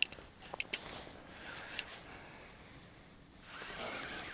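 Fishing rod and reel being handled: a quick cluster of light clicks in the first second, then a soft rubbing sound near the end.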